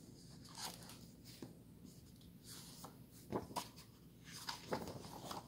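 Hardcover picture book being opened and its paper pages handled and turned: faint rustling and sliding of paper with a few short swishes, the loudest a little past halfway and near the end.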